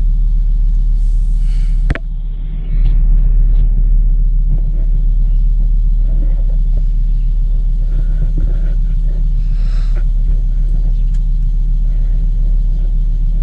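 2002 Volvo V70's 2.4-litre five-cylinder engine idling steadily while it warms up after a thermostat replacement. There is a short dip in level about two seconds in.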